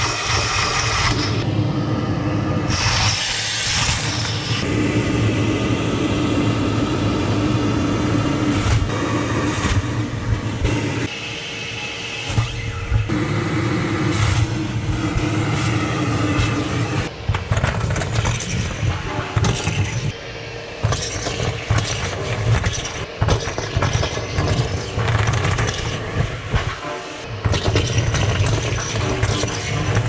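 Vacuum cleaner running steadily while its nozzle sucks up Christmas decorations: bell garland, tinsel strands and small baubles rattle and clatter up the hose, with many sharp clicks in the second half.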